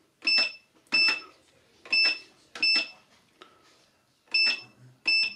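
CountLab electronic cash register's keypad beeping as number keys are pressed: six short, high beeps, each with a key click, in three pairs. The new date is being keyed in, two digits at a time.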